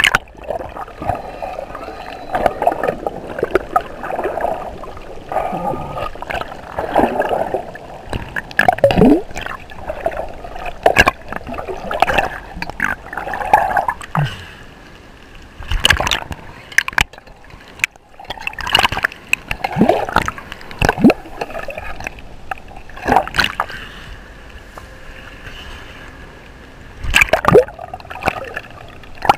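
Water gurgling and sloshing around an action camera as it moves underwater and breaks the surface, with repeated sharp knocks and a few loud splashing strokes.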